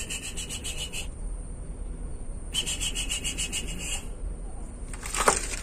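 Insect calling in two rasping bursts of fast pulses, over a faint steady high drone, with a brief high whine near the end.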